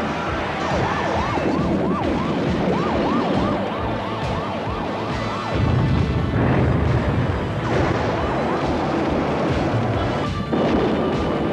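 Action-film trailer soundtrack: a siren in a fast yelp, quick rising-and-falling sweeps about three a second, over music. The siren breaks off about five seconds in for a loud deep rumble, then yelps briefly again near eight seconds.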